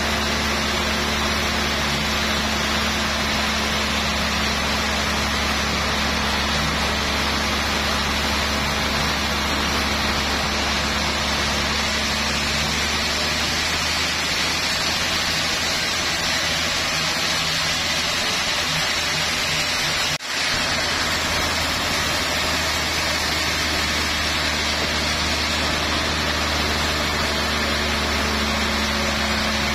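Log band saw running steadily as its blade cuts lengthwise through a rain tree (trembesi) log, a constant mechanical drone with a steady hum. The sound drops out for an instant about two-thirds of the way through.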